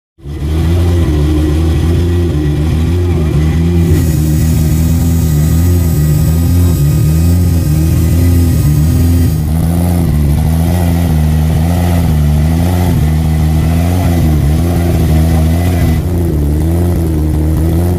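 Porsche 911 flat-six engine running at a steady moderate speed, cutting in abruptly, its pitch wavering gently up and down with small changes of throttle.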